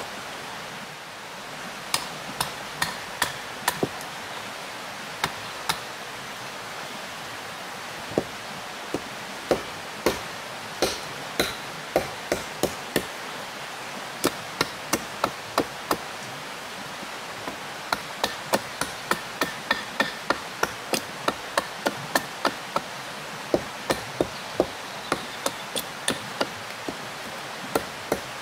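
Repeated sharp blows of a tool on wood, in runs of several strikes about two a second with short pauses between, over the steady rush of flowing river water.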